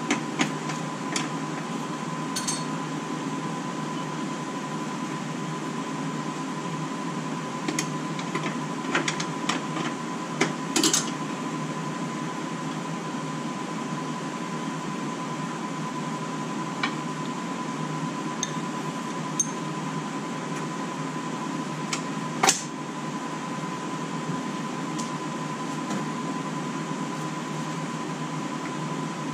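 Steady machine hum with a thin high whine, under scattered light metallic clinks and taps from hand-tool work on a car's front brake line fitting at the caliper. The clinks bunch up around ten seconds in, with one sharp clink just past twenty seconds.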